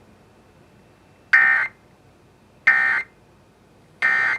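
Emergency Alert System end-of-message data bursts: three short, identical buzzy bursts of SAME digital tones, each about a third of a second long and about a second apart, signalling that the warning message is over.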